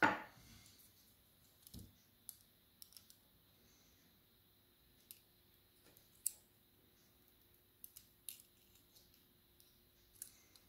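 Light metallic clicks and ticks of a pin-tumbler lock cylinder's small parts being handled while it is taken apart: a sharper click at the start, then scattered single clicks every second or so.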